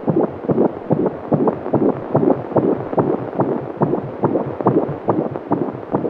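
Fetal heartbeat at 35 weeks heard through a BabyBeat fetal Doppler's speaker: a fast, even pulse of about two and a half beats a second, matching the 150–170 beats per minute on its display.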